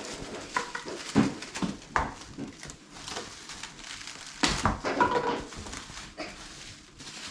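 Plastic cling wrap crinkling and squeaking as it is stretched and pulled tight around a mud crab, with irregular crackles and a few sharp knocks.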